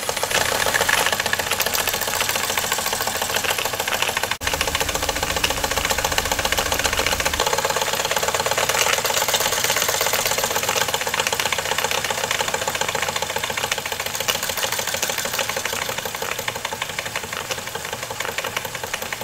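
Retrol SE-03 model steam mill engine running, a fast, even chuffing and mechanical clatter with steam hiss, broken off sharply about four seconds in.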